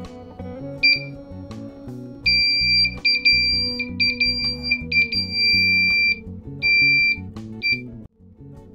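Electronic hourglass kit's buzzer beeping at one high pitch. A few short beeps come first, then from about two seconds in a run of long beeps with short gaps, stopping near the end. Background music plays underneath.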